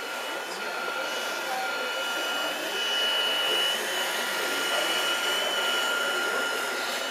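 Radio-controlled scale model Liebherr L576 wheel loader's electric motors and hydraulic pump whining steadily over a hiss, the high whine wavering slightly and growing a little louder about two to three seconds in as the bucket is worked.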